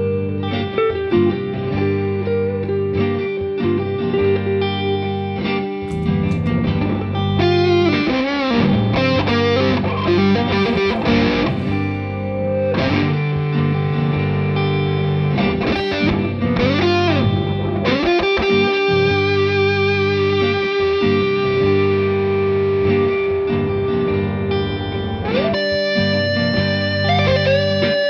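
Squier Bullet Stratocaster electric guitar played as a melodic solo, with long held notes, string bends and a flurry of quick notes partway through, over steady low notes.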